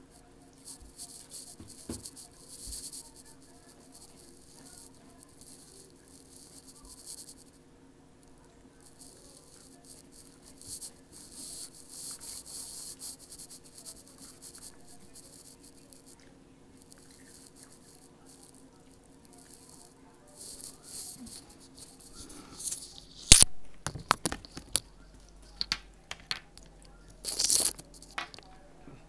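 Quiet crackling and rustling of crunchy snacks being handled and eaten, over a faint steady hum. In the last several seconds, a run of loud knocks and bumps as the phone that is recording is grabbed and moved.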